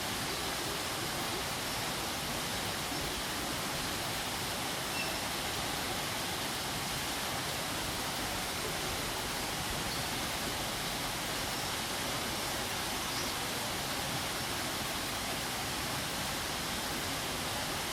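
Steady rushing of a waterfall, an even, unbroken noise of falling water.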